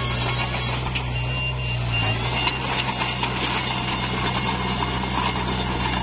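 Komatsu D21P bulldozer's diesel engine running steadily, its note dipping briefly about two seconds in, with light metallic clicks and rattles from the machine.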